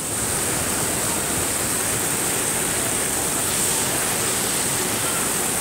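Heavy rain pouring down, a steady, dense hiss with no break.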